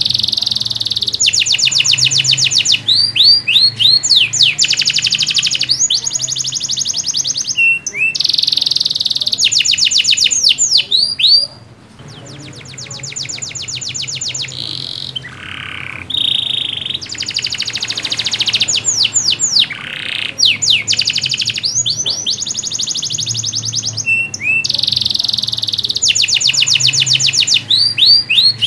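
Domestic canary in full song, pouring out long phrases of very fast trills and sweeping chirps with short pauses between them. The song drops to a quieter stretch about twelve seconds in, then resumes.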